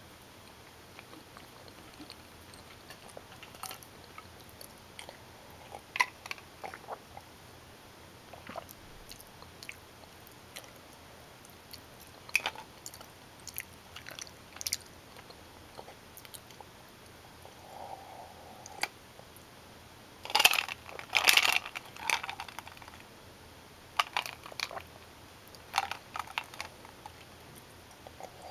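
Close-miked chewing and mouth sounds of someone eating bowtie pasta with Italian sausage: sparse, soft wet clicks, with a louder, denser run of them about twenty seconds in.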